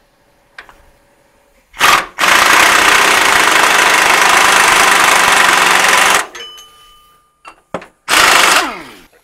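Pneumatic impact wrench running on the leaf-spring nuts: a short burst, then about four seconds of continuous running, and another short burst near the end that winds down in pitch.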